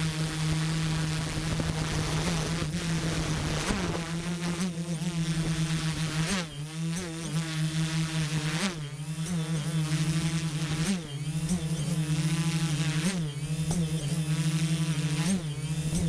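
Multirotor drone's Turnigy Multistar 4822-690Kv brushless motors and propellers buzzing steadily, heard from the onboard camera. The pitch briefly swings up and down about every two seconds as the motor speeds change in flight, with wind rushing over the microphone during the first few seconds.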